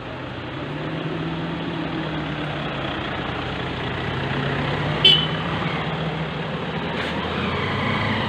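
Engine of a Toyota Innova running steadily as it drives slowly past at close range, with a brief horn toot about five seconds in.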